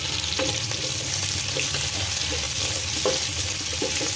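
Sliced onions and green chillies sizzling steadily in hot olive oil in a kadhai. A wooden spatula stirs them, scraping and tapping against the pan about once a second.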